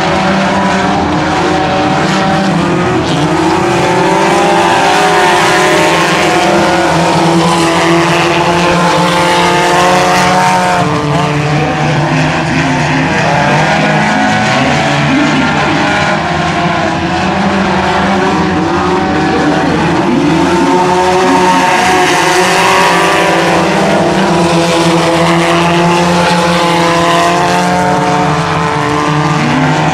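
A pack of Sport 4 compact race cars running on a dirt oval, several four-cylinder engines at once revving up and falling back as they go through the turns. The sound swells twice, about eight and twenty-two seconds in, as cars pass close.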